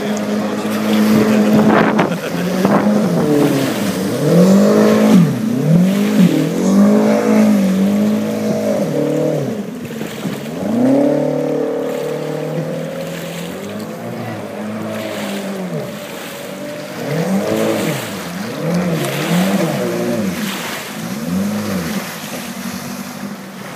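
Jet boat engine revving up and down over and over as the boat runs and turns hard on the river, its pitch rising and falling in repeated swells.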